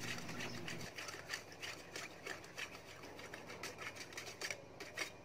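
A wooden chopstick stirring sugar into warm water in a stainless steel bowl, scraping and tapping the bowl's bottom and sides in a quick run of light strokes, a few a second. The stirring stops near the end.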